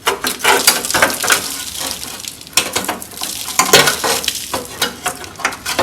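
Metal part of a Type 4 VW engine being worked loose and pulled off: irregular scraping and clattering metal knocks.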